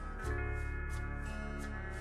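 Background music: a light instrumental tune with a steady beat.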